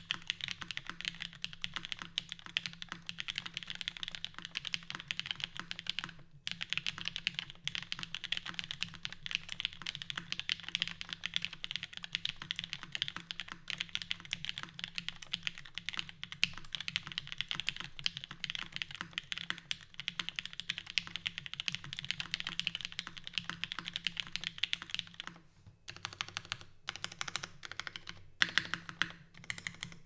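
Fast, continuous typing on a Singa Jaguar V2 mechanical keyboard (top-mounted aluminium plate with flex cuts, lubed and filmed SP-Star Meteor V3 switches, GMK keycaps): a dense stream of crisp key clacks. There is a short break about six seconds in, and the strokes turn sparser and more separate near the end.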